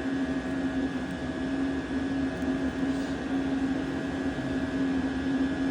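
Diesel heater running: a steady hum over an even rush of air from its blower.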